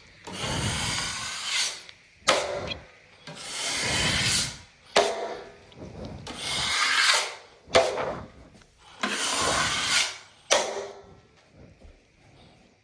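A hand tool scraping or rasping across drywall in four long strokes, each stroke about a second and a half and each followed by a sharp click.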